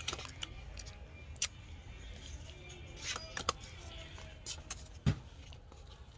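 Quiet eating at a table: scattered sharp clicks and knocks of a fork and food against plates, the loudest a knock about five seconds in, with faint music in the background.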